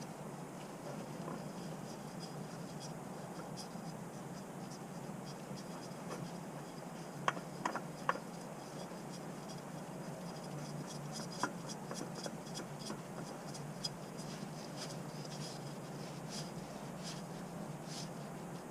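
Fram Ultra Synthetic spin-on oil filter being threaded on by hand: faint scraping and rubbing, with a few sharper clicks about seven to eight seconds in and a run of faint ticks in the second half, over a steady low hum.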